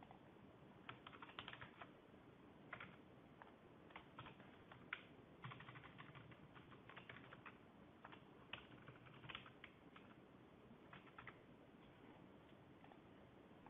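Faint computer keyboard typing in short bursts of keystrokes, with pauses between them.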